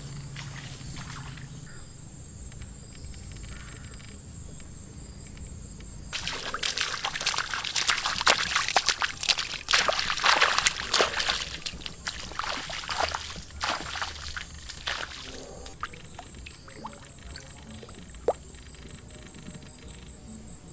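Water sloshing and pouring, with a loud flurry of splashes through the middle few seconds. A steady high-pitched buzz runs underneath in the quieter stretches before and after.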